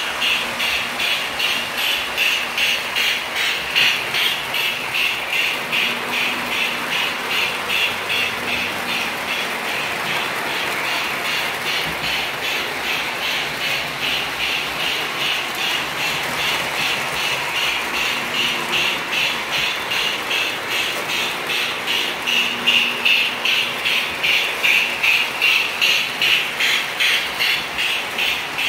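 O scale model trains running on three-rail track: a steady motor drone with a fast, even clickety-clack of wheels over the rails.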